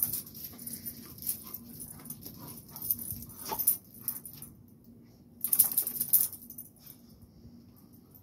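Two dogs scuffling and growling at each other: irregular sudden bursts of dog noise, loudest about three and a half seconds in and again around five and a half to six seconds in, then quieter.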